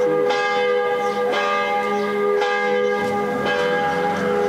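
Church bells ringing, a new stroke about once a second, each ringing on into the next.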